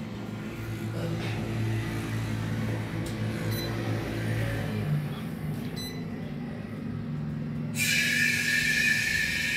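Steady mechanical hum of gas-filling equipment while a small LPG cylinder is refilled through a hose and valve; about eight seconds in, a loud steady hiss of gas rushing through the valve joins it.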